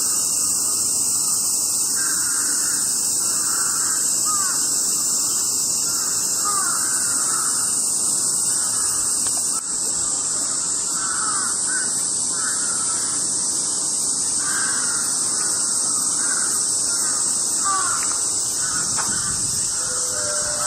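A chorus of cicadas singing in a steady, high-pitched buzz, with birds calling repeatedly over it in short sweeping notes.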